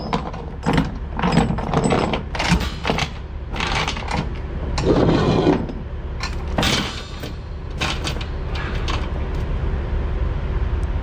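Steel transport chain and ratchet binders clanking and rattling in a run of sharp metal knocks as they are handled and laid out on a flatbed trailer's deck, with a longer scraping rattle about five seconds in. A steady low rumble runs underneath.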